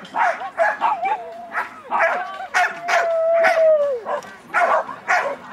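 Dog barking repeatedly in short, sharp bursts, about a dozen barks, excited while running an agility course. A little past the middle comes one long drawn-out cry that drops in pitch as it ends.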